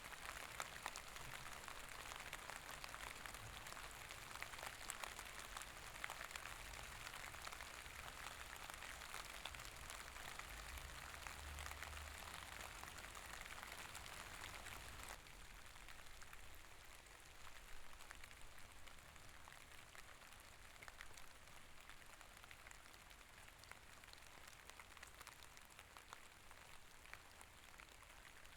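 Soft, steady rain with fine pattering drops, dropping to a lower level about halfway through.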